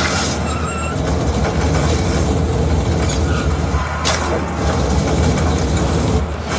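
Action-film sound effects played through a Dali Katch One soundbar: a loud, steady propeller-plane engine rumble with heavy bass and a few brief crashes.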